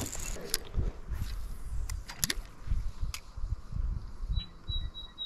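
Fishing rods and a spinning reel being handled, with several sharp clicks and knocks over a low, uneven rumble. A bird chirps faintly near the end.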